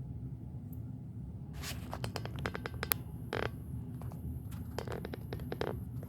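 Hands handling small jewelry-making components and their plastic bags: a run of small clicks and taps mixed with short plastic rustles, starting about a second and a half in and stopping shortly before the end.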